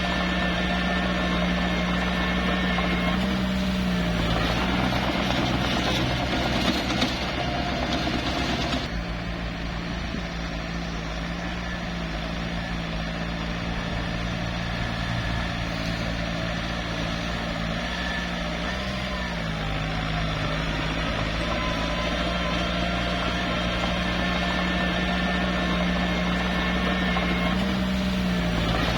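Small bulldozer's diesel engine running steadily as it works, its pitch shifting slightly now and then. A noisier, rougher stretch comes between about four and nine seconds in.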